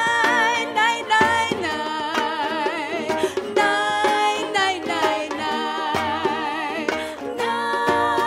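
Recording of a Filipino folk-style song: a woman sings the drawn-out "nay… nay…" refrain with marked vibrato over instrumental accompaniment.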